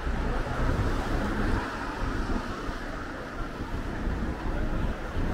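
Street noise: a steady wash of passing road traffic, with a low rumble underneath.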